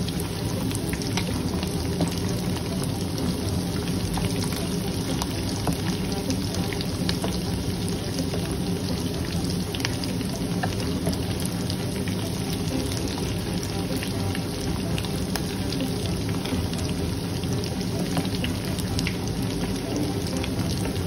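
Beef tikka pieces deep-frying in hot ghee in a pan: a steady, dense sizzle with many small crackles of spattering oil as the pieces fry crisp on a medium flame.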